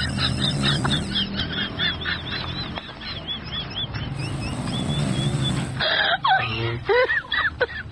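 Bird calls: a rapid series of short high chirps, about four a second, then louder, lower calls that fall in pitch over the last two seconds.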